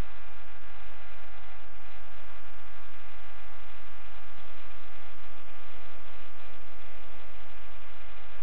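Steady electronic hum and hiss with many fixed tones, unchanging throughout: the self-noise of a thermal rifle scope's built-in recorder.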